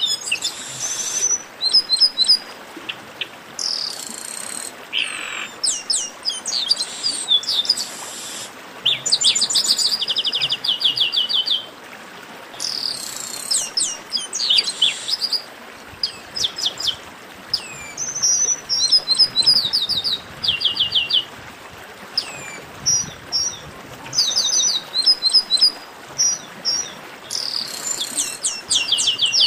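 Chestnut-capped blackbirds singing: a dense, chattering stream of sharp, high notes that fall in pitch, many given in quick runs and trills, often overlapping.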